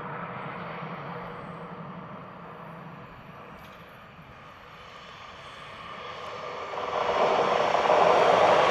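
ÖBB Talent electric multiple unit approaching and passing close by, its running noise swelling steadily from faint to loud over the last few seconds.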